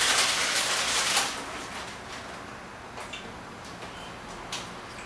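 Crinkly rustling of a ladyfinger biscuit package as biscuits are pulled from it, lasting about a second, followed by a few light clicks.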